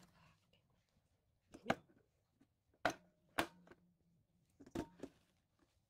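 Four sharp plastic clicks and knocks from an Ambiano stand mixer as its tilt-release button is pressed and the motor head is raised and locks.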